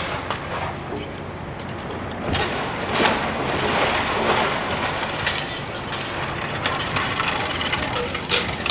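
Excavator demolishing a wood-frame, shingled house: the bucket tearing into the roof makes a continuous crunching and splintering of wood over the machine's running engine, with a cluster of sharp cracks near the end.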